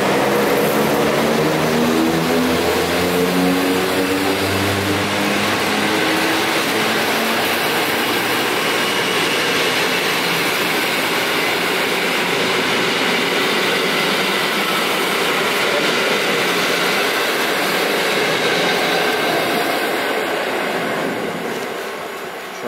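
Passenger train hauled by an EP09 electric locomotive running past at speed. A whine of several tones from the receding locomotive shifts in pitch and fades over the first few seconds. Then the coaches' wheels on the rails make a steady rush, which dies away near the end as the last coach passes.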